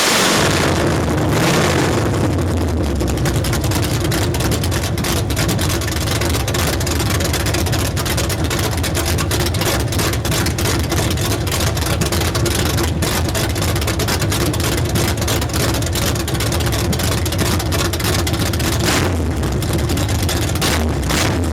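A 383 stroker small-block Chevy V8 with a Comp Cams XR282HR camshaft idling roughly, with a steady, uneven pulsing exhaust beat.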